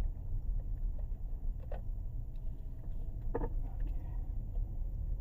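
Low, steady rumble of the 2017 Kia Sorento running, heard from inside the cabin.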